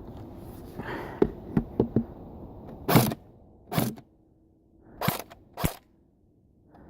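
Airsoft gun firing. A quick string of four sharp snaps comes a little over a second in, then four louder single pops spaced out over the next few seconds.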